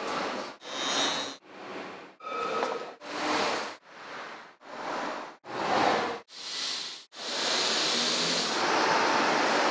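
About nine short snippets of hissy outdoor background noise, each under a second long and cut off sharply, one after another. From about seven seconds in the noise runs on as a steady stretch.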